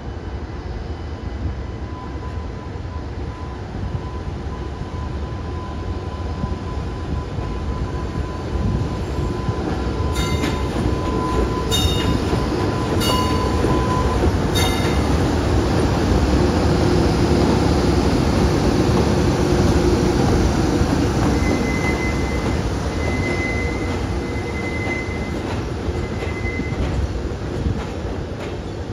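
A JR Freight EH200 twin-unit electric locomotive runs by slowly on its own while shunting. Its running gear rumbles over the rails, growing louder as it passes close about halfway through and fading as it moves off. A thin steady whine is heard at first, then a few short high squeals, and later a thin high squeal from the wheels comes and goes.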